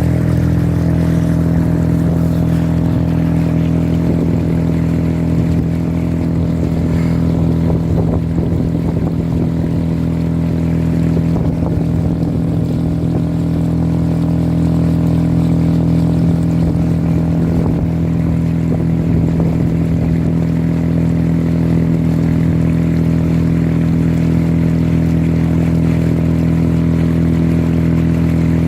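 Motor engine running at a constant speed, a steady low drone made of several even tones that holds unchanged throughout.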